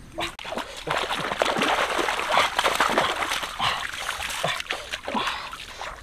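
Water splashing and sloshing as someone wades through a shallow river on foot: a dense run of splashes that builds about a second in and thins out near the end.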